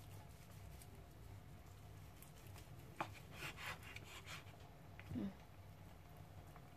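Faint kitchen-knife slicing of boiled beef on a wooden cutting board: a sharp tap of the blade on the board about three seconds in, then a few soft cutting strokes through the meat, over a low steady hum.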